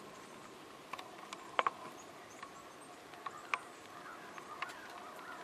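Quiet outdoor background hiss with a handful of scattered sharp ticks, the loudest a quick double tick about a second and a half in.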